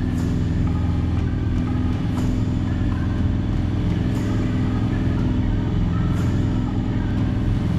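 Piper Archer III's four-cylinder Lycoming engine and propeller running steadily in flight, a constant low drone heard from inside the cabin.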